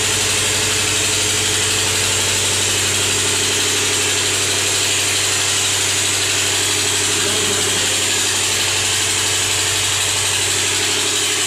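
A steady machine hum with a low drone and a constant hiss, unchanging in level.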